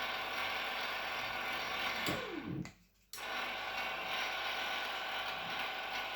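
AR-500 antenna rotator's geared motor running with a steady mechanical whirr. About two seconds in it winds down with a falling pitch and cuts out, then starts again abruptly a second later and runs on steadily.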